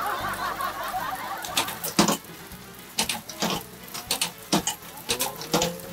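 Electric bamboo-strip slicing machine running as strips of bamboo are fed through its rollers. From about one and a half seconds in there is an irregular rattle of sharp clicks and snaps as the bamboo is drawn in and split.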